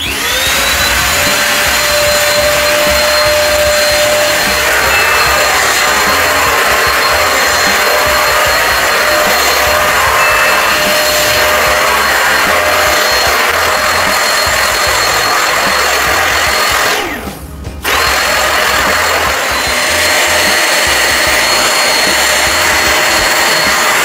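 Kurumi KV-01 handheld UV mite vacuum cleaner switched on, its whine rising as the motor spins up, then running steadily while it is pushed over a mattress. The sound breaks off briefly about seventeen seconds in and then resumes.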